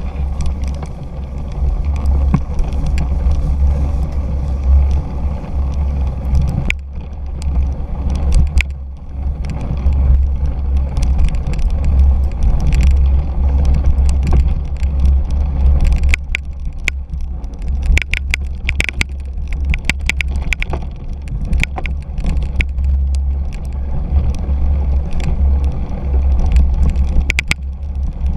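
Wind rumble on the camera microphone over the rattle and clatter of a 2017 Fuji Jari 1.5 cyclocross bike riding across bumpy grass and dirt. Many short sharp clicks and knocks come as the bike jolts over rough ground, thickest a little past the middle.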